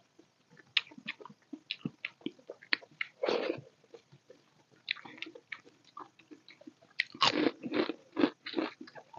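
Close-miked wet chewing and lip smacks of soft dal khichdi, with the squelch of fingers mixing the rice and lentils on the plate. Many short clicks throughout, with a louder squishy patch about three seconds in and a run of them near the end.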